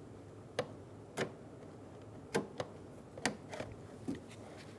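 A handful of small, sharp, irregular clicks and taps of plastic parts being handled: the Camry door handle's cable end being snapped into its bracket on the door panel.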